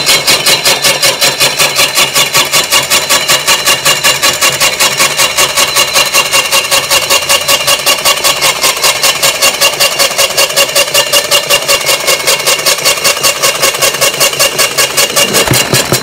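Hi-Winch twin-motor electric winch running flat out, spooling 12 mm synthetic rope onto its drum: a loud motor whine that pulses about four times a second. It cuts off suddenly near the end once the rope is fully wound in.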